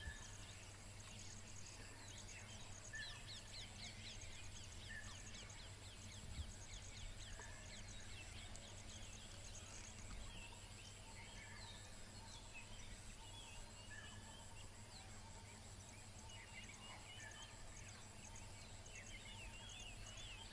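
Faint forest ambience: many short bird chirps and calls scattered throughout, over a steady high pulsing and a low steady hum.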